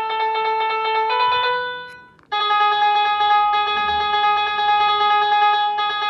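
Piano notes from a smartphone keyboard app, set off by a parrot pecking at the on-screen keys. A note changes about a second in, then after a brief gap one note is held for about three and a half seconds before another starts near the end.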